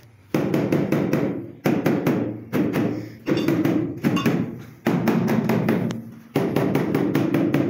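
A ceramic wall tile being tapped into its mortar bed in quick runs of knocks. There are about six bursts at uneven intervals, each starting suddenly and dying away over about a second, with a ringing echo.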